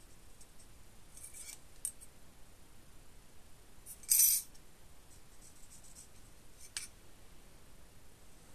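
A marking tool scratching a short line along a steel rule on an aluminium alloy plate, once and loudly about four seconds in, lasting under half a second. A few light clicks and taps of the rule and tool on the metal come before and after.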